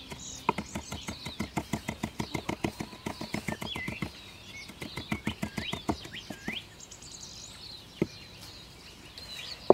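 Rapid chopping of a high-carbon steel Japanese knife on a wooden cutting board, mincing garlic, ginger and chilli, about five to six strokes a second, stopping about six seconds in. Birds chirp over it, and two single knocks come near the end.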